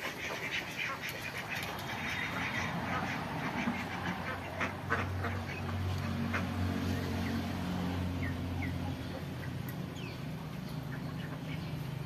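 A flock of domestic ducks quacking, busiest in the first few seconds. From about five seconds in, a low steady hum sets in underneath.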